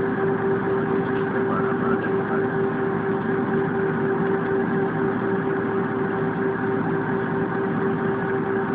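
Steady cabin drone of an Airbus A320 with its engines running, with a constant pitched hum over an even rushing noise.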